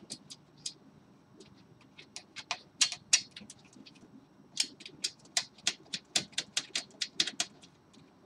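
Small metallic clicks and taps of M4 screws and nuts being fitted by hand to a 3D printer kit's metal frame corner. Scattered at first, then a quick run of about four clicks a second in the second half.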